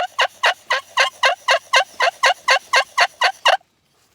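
A hunter's turkey call yelping: a fast, even run of short notes, each dropping in pitch, about four a second, that stops shortly before the end.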